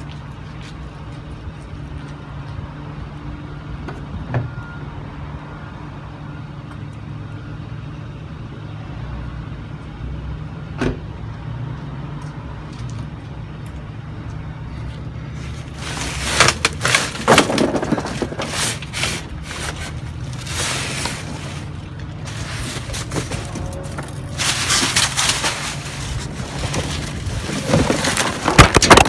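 A steady low hum, with a couple of small knocks, then from about halfway through, loud irregular rustling and scraping of cardboard boxes being handled and shifted, loudest near the end.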